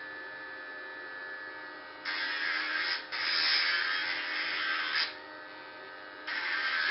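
A small homemade motor-driven disc tool whining steadily, then a loud gritty grinding hiss in stretches, starting about two seconds in, breaking off briefly, stopping around five seconds in and starting again near the end, as the spinning disc is pressed against a small workpiece.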